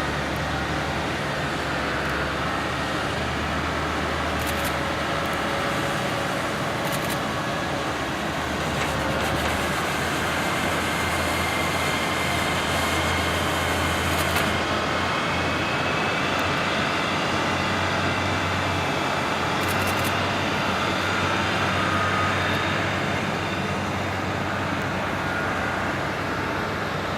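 Diamond DA40 Diamond Star light aircraft's propeller engine heard across the airfield, a steady rumble with faint engine tones that drift slowly in pitch, with a few short clicks.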